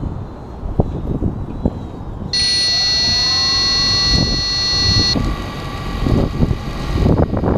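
Wind buffeting the microphone of a grounded quadcopter drone; about two seconds in a steady high-pitched electronic tone starts, and about a second later the drone's motors begin a rising whine that levels off. The tone fades after about three seconds while the motors keep running.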